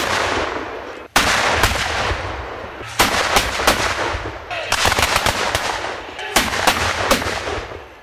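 Black-powder gunfire: about a dozen sharp shots in ragged clusters, some close together, each trailing off in a long echo.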